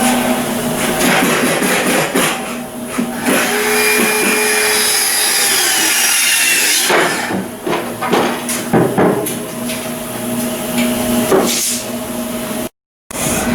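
Shipyard outfitting work noise: a steady machinery hum with power-tool whine and a series of sharp metal knocks in the second half. The sound cuts out briefly near the end.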